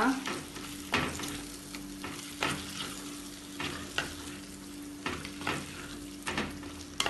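Wooden spatula stirring prawn masala with freshly added yogurt in a clay pot over low heat: a steady sizzle of frying, broken by irregular scraping strokes of the spatula against the pot about once a second.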